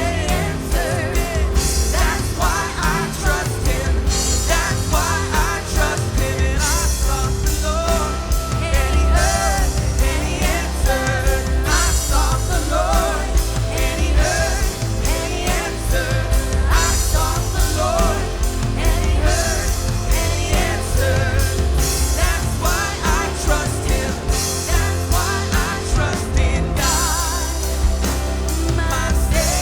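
A live worship band plays a full rock-pop arrangement: drums with cymbals swelling in and out every few seconds, bass guitar, synth, piano and guitar, with a wavering melodic line over the top.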